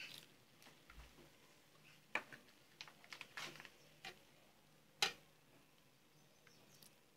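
Faint, scattered clicks and taps of kitchen utensils handled at a large aluminium cooking pot, the sharpest about two seconds and five seconds in.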